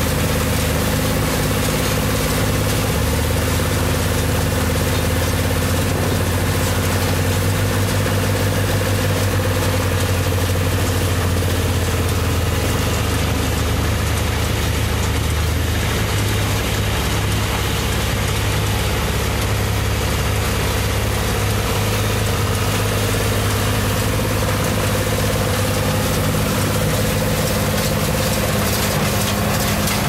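A John Deere 2155 tractor's three-cylinder diesel engine runs at a steady working speed, driving a New Holland 271 square baler through its PTO as the baler picks up and bales hay, its machinery clattering under the engine note.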